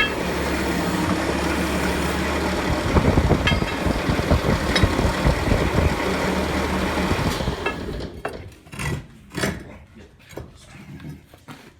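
Bobcat T-190 compact track loader's diesel engine running steadily, with knocks and clanks from the machine over the middle stretch. The engine sound stops abruptly about eight seconds in, and a few spaced plucked notes follow, like the start of guitar music.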